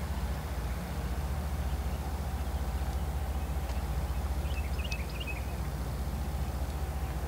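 Low, steady rumble of a freight train that has passed out of sight. A few short bird chirps come about halfway through.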